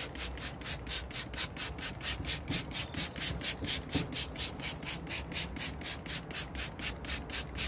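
Hand trigger sprayer pumped rapidly, putting out fast, evenly spaced hisses of fallout remover onto an alloy wheel, about five to six sprays a second.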